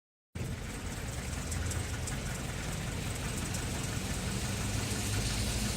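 Town traffic on a wet road: vehicle engines rumbling under a steady hiss of tyres on the wet surface. It starts abruptly about a third of a second in and grows slightly louder toward the end.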